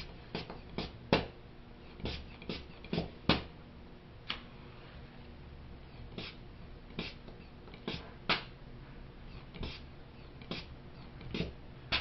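Rubber hand-pump bulb squeezed over and over, pushing air through plastic tubing into a glass flask. It makes a string of short, sharp puffs, unevenly spaced at roughly one or two a second.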